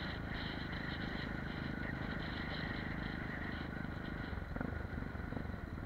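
Apollo RX250 supermoto's 250 cc single-cylinder engine running steadily at an easy cruising speed, heard from the rider's helmet with wind rush over it.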